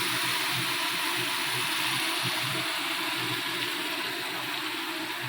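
Onion, garlic and ginger paste with sour curd sizzling steadily in hot oil in a kadai.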